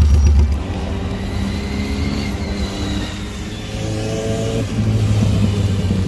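A cruiser motorcycle's deep engine rumble close by as it pulls away, then motorcycle engines accelerating past. The engine note rises, drops suddenly about three-quarters of the way through, then climbs again.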